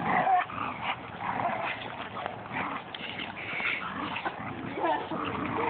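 A pointer and a Great Dane play-fighting, with short dog vocal sounds at the start, about a second and a half in and again near the end, over the scuffle of their bodies rolling in dirt.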